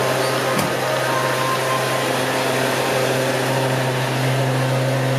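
Petrol station fuel dispenser pumping fuel into a car: a steady hum from the pump with the hiss of fuel flowing through the nozzle.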